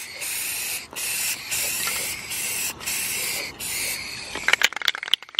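Aerosol spray paint can spraying onto a car's body panel in about six short bursts of hiss, each cut off by a brief pause. Near the end there is a quick run of rattling clicks.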